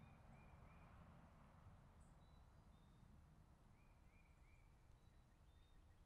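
Faint birdsong over a low ambient rumble: a bird gives a quick three-note phrase near the start and repeats it about four seconds in, with a few scattered higher chirps from other birds.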